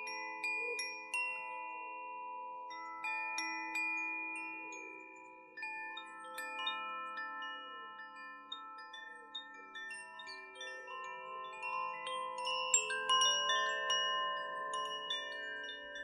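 Koshi wind chimes ringing, their rods struck again and again at irregular moments, many bell-like notes overlapping and ringing on.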